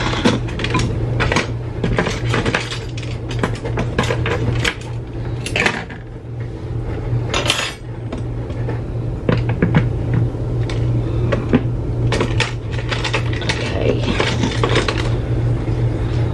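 Metal kitchen utensils, scoops and pizza cutters among them, clinking and clattering as they are handled and set into a storage container, many irregular small knocks throughout, over a steady low hum.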